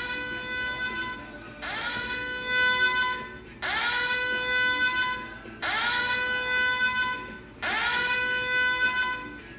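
Electronic alert tone, a buzzy pitched note that swoops up at its start and then holds. It repeats five times, about two seconds apart.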